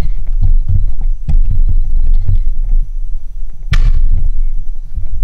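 Camera handling noise: irregular low thumps and rumbling as the camcorder is gripped and set in place, with one sharp knock a little before the end.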